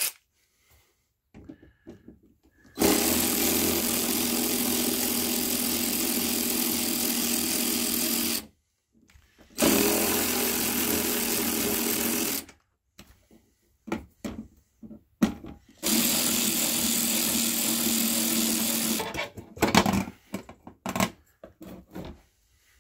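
Handheld electric drill running in three steady bursts, the first about five seconds long and the next two about three seconds each, with clicks and knocks of handling between them.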